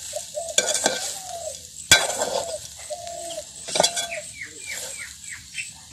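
A metal spoon stirs and scrapes a thick, dry chilli, onion and dried-shrimp fry around a metal pot, with a few sharp clinks against the pot and a faint sizzle. A run of short, falling bird chirps sounds in the second half.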